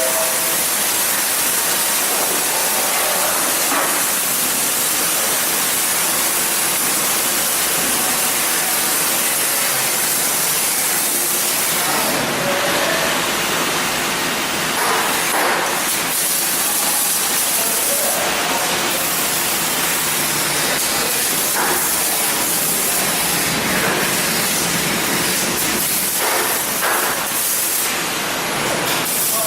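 Welding arc hissing steadily and loudly, with a few short flare-ups in the hiss partway through.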